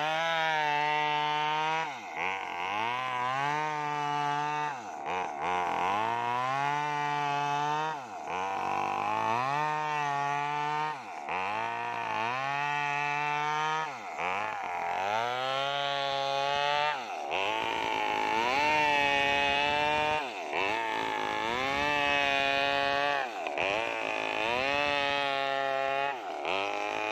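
Maestro mini chainsaw ripping lengthwise through a sengon log, its engine revving up and dropping back about every one and a half to two seconds as the chain bites and is eased off in the cut.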